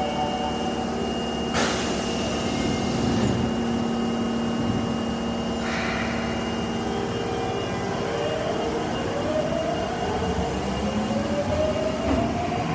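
Osaka Metro Tanimachi Line 22 series subway train: steady motor tones, two short bursts of noise in the first half, then a whine rising in pitch over the last few seconds as the train gathers speed.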